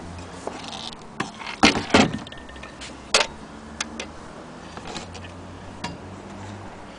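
Scattered clicks and knocks of metal parts on an antique Singer 28K hand-crank sewing machine as it is handled, not run. Two louder knocks come close together between one and a half and two seconds in, and a sharp click follows about a second later, then a few faint ticks.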